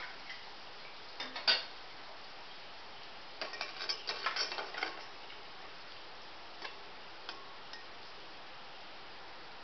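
Perforated steel frying spoon clinking and scraping against a steel pot while turning bread frying in ghee: one sharp clink about a second and a half in, a quick run of clinks between about three and a half and five seconds, and a few light taps after. A steady faint hiss lies underneath.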